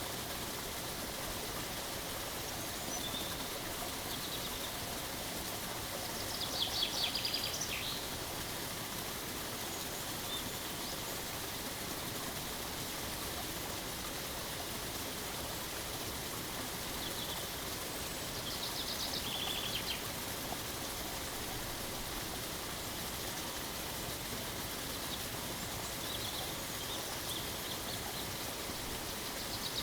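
Steady rushing of a waterfall, with small birds calling over it in short, fast, high trills three times and a few fainter chirps between.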